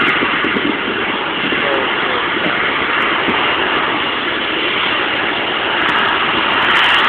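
Boeing 747 freighter's four jet engines running at taxi power as the aircraft rolls slowly past: a steady, even jet noise with no change in pitch.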